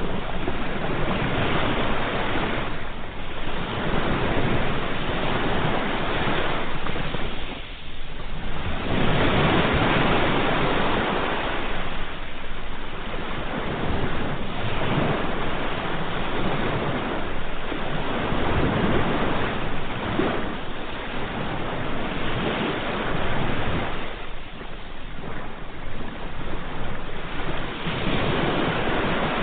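Sea waves breaking and washing on the shore in a steady surging hiss that swells and eases every few seconds.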